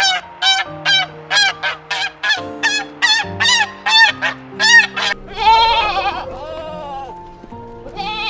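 Waterfowl honking, about a dozen short calls at two to three a second, followed about five seconds in by two longer, wavering bleats from a goat or sheep. Soft background music with held notes runs underneath.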